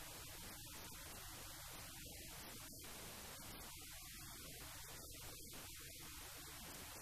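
Faint steady hiss with a low hum underneath: recording noise with no distinct sound events.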